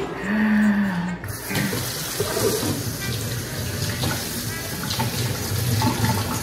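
Water running from a kitchen tap into a sink, a steady hiss that starts about a second in, after a brief low steady tone.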